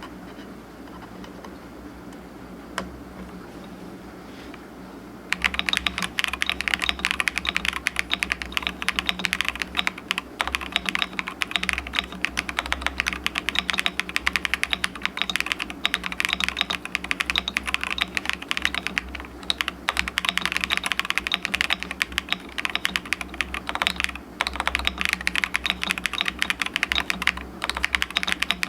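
Fast typing on a Monsgeek M3W aluminium TKL mechanical keyboard with Akko V3 Cream Yellow Pro linear switches and PBT double-shot keycaps: a dense, continuous run of keystrokes starting about five seconds in, with a few short pauses. Before that there is only a faint hum and a single click.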